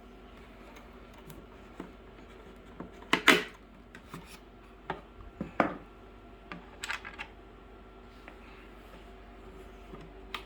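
Scattered clicks and knocks of small hardware and hard plastic being handled as the wing nuts and watering cups are taken off a plastic chicken waterer, the loudest knock about three seconds in, over a faint steady hum.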